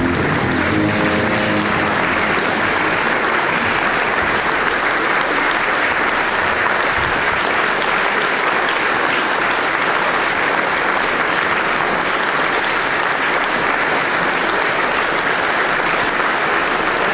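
Audience applauding steadily, with the last notes of the backing music dying away about a second in.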